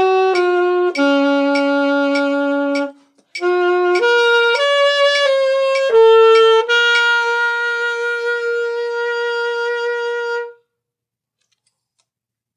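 Alto saxophone playing the closing phrase of a solo etude, one note at a time. There is a short breath gap about three seconds in, then a run of notes leading to a long held final note that cuts off about ten and a half seconds in.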